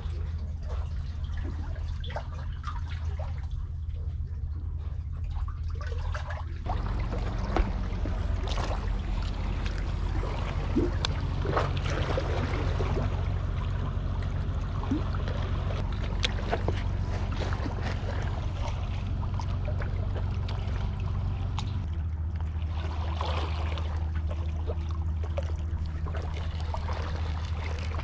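Seawater trickling and lapping among concrete tetrapod blocks, with a steady low rumble and scattered small clicks and knocks.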